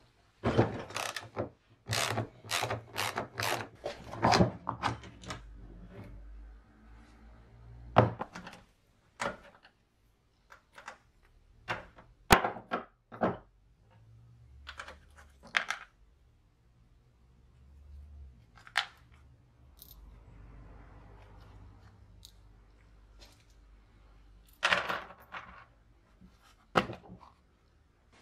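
A socket ratchet wrench working a lawnmower wheel bolt, with about two strokes a second for the first few seconds. After that come scattered clicks and knocks of metal drive parts being handled as the mower's self-propelled gear drive is taken apart.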